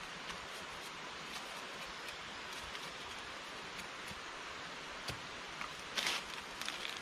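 Large knife whittling a wooden stick: faint sharp scraping ticks over a steady hiss. About six seconds in, a louder short rustle of dry leaves and twigs.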